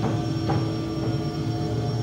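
Dark ambient drone music from the performance's soundtrack: a low, pulsing rumble under a few steady held tones, with faint soft hits in the first second.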